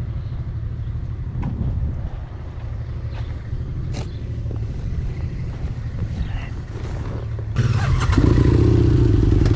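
Honda Transalp 650's V-twin engine running steadily at low revs. About seven and a half seconds in it suddenly gets louder and fuller.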